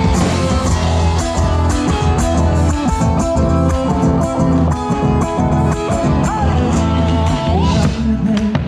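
Live folk-rock band playing, with electric guitar leading over bass and drums. The lead line bends up in pitch twice in the second half.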